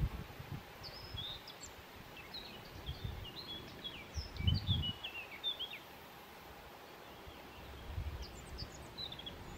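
Small birds chirping in quick, short, high calls over steady outdoor background noise, with a few low rumbles, the loudest about four and a half seconds in.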